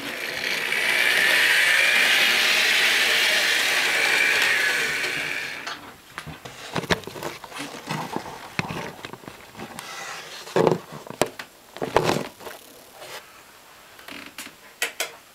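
Steady electric whir of a model train locomotive's motor for about five and a half seconds, swelling in and fading out, followed by scattered clicks and knocks.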